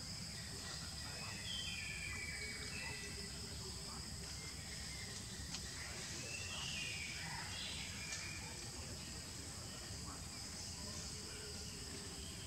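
Forest ambience: a steady high insect drone over a low rumble, with a few short high chirping calls about two, seven and eight seconds in.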